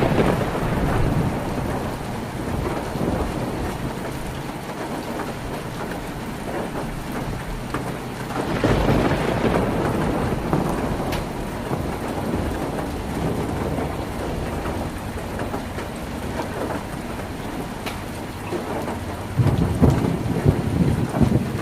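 Heavy rain falling on a tin roof in a steady hiss, with two swells of low rumbling: about eight seconds in, and again near the end.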